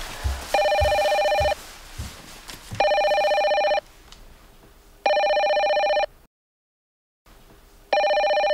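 Cordless telephone handset ringing in its charging base with an electronic trilling ring: an incoming call. Four rings of about a second each, roughly two and a half seconds apart.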